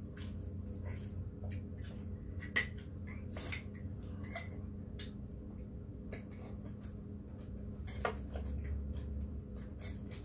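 Metal spoons and chopsticks clicking and clinking against bowls and plates during a meal, in scattered sharp ticks, over a low steady hum.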